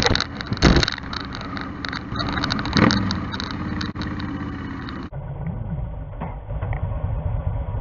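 Yamaha Star Stryker's V-twin engine running under way, mixed with wind noise. About five seconds in the sound turns duller and lower.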